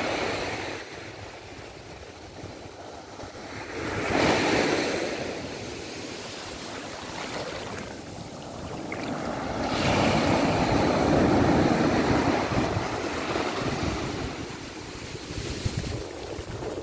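Small sea waves breaking and washing up a sand beach, in swells: one fading at the start, another about four seconds in, and a longer, louder wash from about ten seconds.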